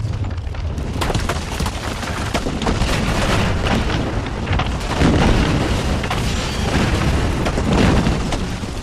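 Loud sound effect of an earthquake bringing a building down: a continuous deep rumble with repeated cracking and crashing of breaking, falling rock.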